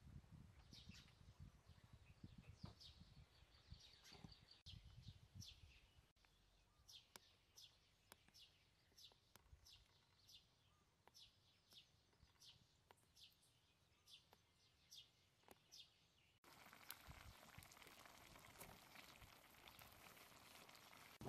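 Faint bird chirping: short, high calls repeated about once or twice a second, with a low wind rumble on the microphone in the first few seconds. About three-quarters of the way in, the chirps give way abruptly to a steady hiss from a wok of food cooking over a fire.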